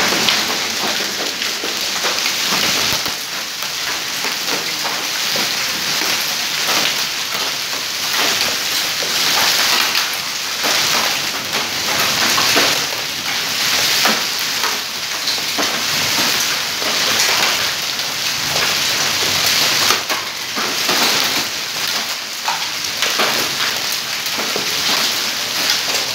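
Hailstorm: hailstones and heavy rain pelting a paved courtyard and walls, a dense, steady clatter of countless small impacts.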